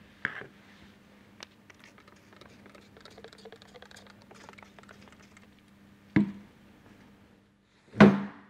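Hand-work sounds from cleaning a metal pump housing: light clicks, rustling and rubbing as a plastic cleaning bottle and a rag are handled. There are two solid thumps, about six and eight seconds in, the second the loudest, over a faint steady hum.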